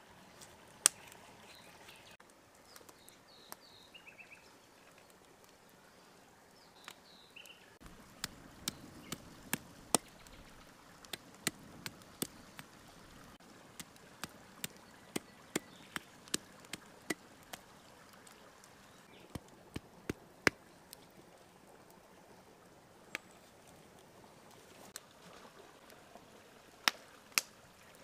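Meat cleaver chopping raw lamb ribs on a wooden stump block: sharp chops through meat and bone into the wood. Most come in quick runs of two or three a second, with single chops before and after.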